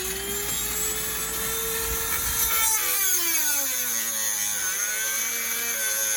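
Dremel rotary tool whining at high speed as it cuts the tip off a bolt. Its pitch sags and wavers from about three seconds in as it bears down on the bolt under load.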